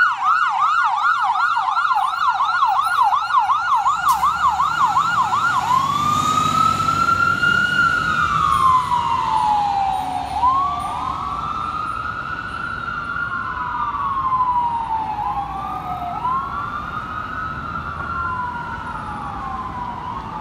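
Fire engine siren on a fast yelp, switching about six seconds in to a slow rising and falling wail, with a second wail tone overlapping it from about ten seconds in. Under it, the truck's engine rumbles as it passes. The whole sound fades gradually as the truck moves away. The truck is a 2016 Spartan Gladiator / Smeal rescue engine running on an emergency call.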